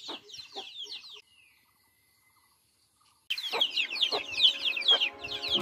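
Chickens calling: rapid, high, falling peeps over a low, regular clucking. The calls stop a second in, leaving about two seconds of near silence, then start again louder.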